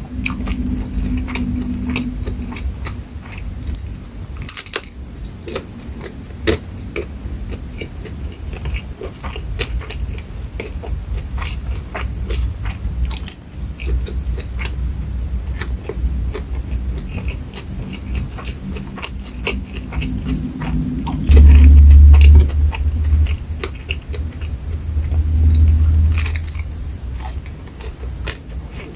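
Close-miked mouth sounds of eating rice with fried shrimp and sambal matah by hand: chewing and crunching with many small wet clicks throughout. Twice in the second half a loud low rumble swells up for a second or two.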